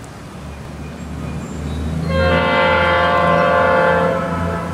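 Diesel locomotive's air horn sounding one long chord of several tones, starting about two seconds in and lasting about two and a half seconds. Under it a low engine rumble grows louder as the unseen train approaches.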